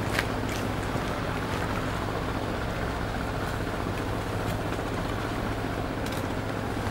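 Steady low drone of a motorboat's engine out on the water, with a few light ticks over it.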